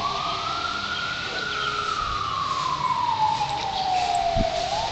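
A siren wailing: one slow rise and fall in pitch, beginning to rise again near the end.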